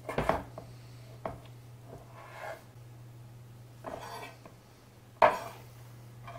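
Chef's knife chopping raw fish on a wooden cutting board: irregular knocks and scrapes of the blade against the board, the sharpest about five seconds in. A steady low hum runs underneath.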